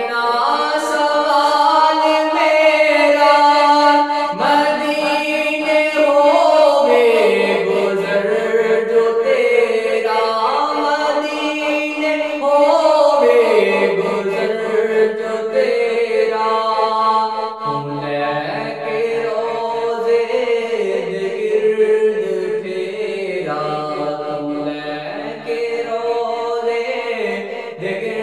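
A man's voice singing an Urdu devotional Salaam in naat style, in long melodic phrases with notes held and sliding between pitches.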